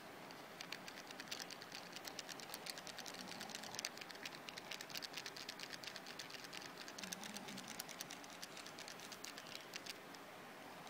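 Keys of a Casio fx-991MS scientific calculator being pressed over and over in quick succession, a rapid run of small clicks, several a second, starting about half a second in and stopping near the end.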